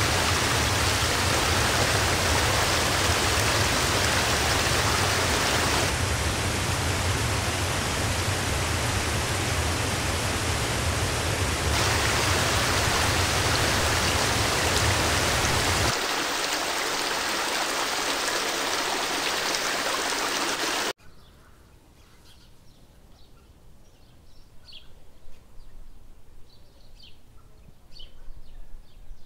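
Waterfall rushing, a dense steady roar of falling water that shifts slightly in tone as the shots change. About two-thirds of the way in it cuts off suddenly to a quiet forest background with faint, short, high bird chirps.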